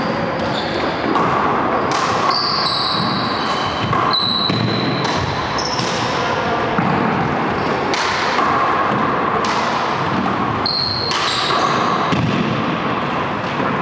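Four-wall handball being played: sharp slaps of gloved hands on the ball and the ball smacking off the walls and floor, about one hit a second, with short high squeaks of sneakers on the hardwood floor.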